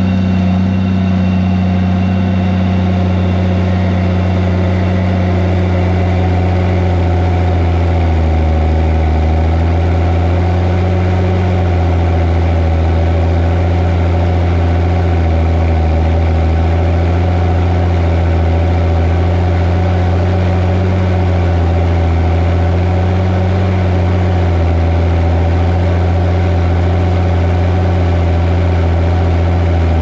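Fendt 936 Vario tractor's six-cylinder diesel engine running steadily under load while pulling a Sumo Trio cultivator, heard close up from the bonnet. Its note dips slightly now and then as the load varies.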